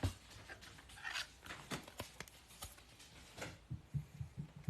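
Light scattered clicks and rustles of a trading card and plastic card sleeve being handled.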